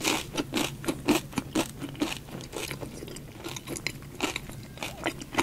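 Crispy coating of a gold-coloured spicy fried chicken drumstick crackling as it is handled close to the microphone: a quick, irregular run of small crackles and clicks, with a louder one near the end.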